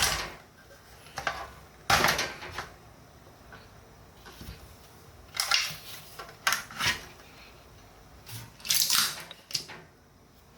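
Intermittent clattering and rustling: several short bursts a second or two apart, each under a second long.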